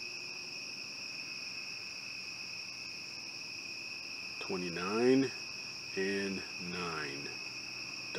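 Crickets trilling steadily outdoors at night, a continuous high-pitched chorus that never lets up.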